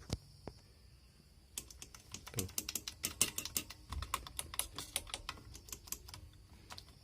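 A sharp click, then from about a second and a half in a dense run of rapid, irregular clicking and tapping from small hard parts being worked.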